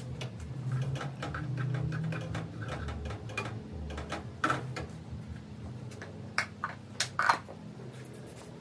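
Kitchen clatter: a metal spatula and cookware knocking and scraping, with irregular clicks and a few sharper knocks about six to seven seconds in, over a low steady hum.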